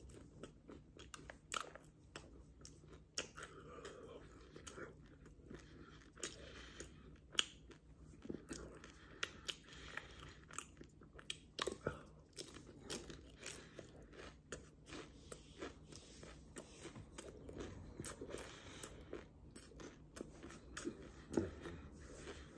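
Quiet close-up chewing of a lobster tail pastry, with irregular crisp crackles as the flaky layered shell is bitten and broken up in the mouth.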